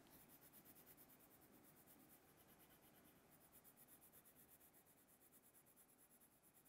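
Very faint scratching of a red coloured pencil on drawing paper, in quick repeated shading strokes.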